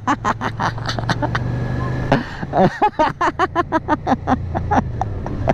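Motorcycle engine running steadily at road speed, heard from the rider's seat, with a man talking over it.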